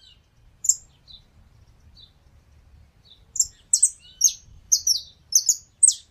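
A small songbird giving short, high-pitched chirps. There is a single chirp about half a second in, then after a pause a quick run of chirps from about three seconds in.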